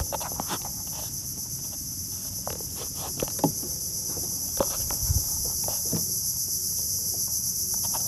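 Insects chirring in a steady, high-pitched drone, with scattered light knocks and taps and one duller thump about five seconds in.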